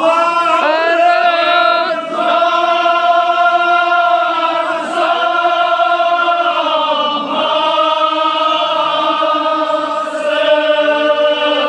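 Men's voices chanting a Kashmiri marsiya, a Shia elegy, in long, high held notes. The chant breaks into a new phrase a few times.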